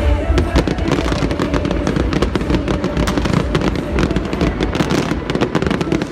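New Year aerial fireworks going off in a dense barrage, with rapid crackling pops and bangs over a continuous low rumble.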